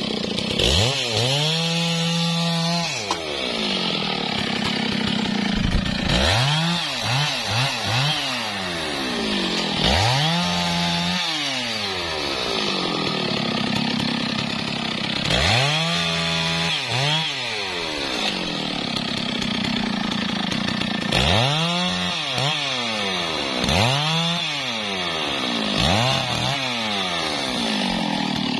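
Stihl MS660 two-stroke chainsaw idling, revved up and let back down to idle about seven times, every few seconds.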